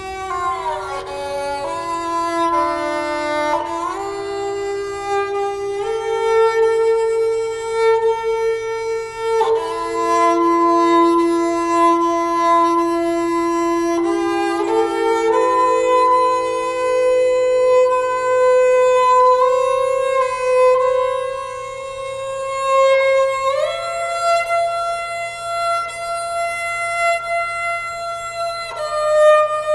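Slow instrumental background music: long held notes that slide smoothly from one pitch to the next, with a violin-like tone.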